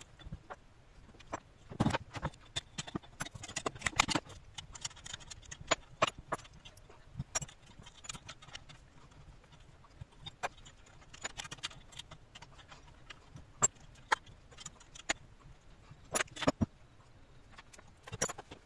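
Irregular metallic clicks and clinks from a hand socket wrench, bolts and nuts as cast Pelton wheel buckets are unbolted from the hub. Occasional louder knocks come from metal parts being set down on the bench.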